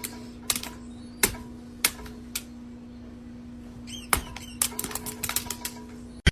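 Irregular sharp clicks and taps over a steady low hum, with a pause in the clicking in the middle and a brief high chirp about four seconds in.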